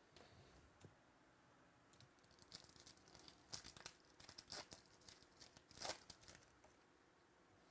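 A trading card pack wrapper being torn open and crinkled: a quick run of short, sharp rips and rustles in the middle few seconds, the loudest about six seconds in.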